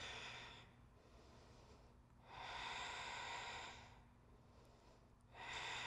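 A woman's slow, deliberate yoga breaths, soft and close to the microphone. One breath trails off just under a second in, a longer one of about a second and a half comes in the middle, and another begins near the end.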